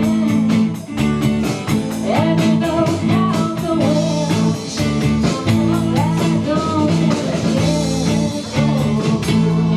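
Live band playing rock-style dance music with electric guitar, a voice and a steady drum beat.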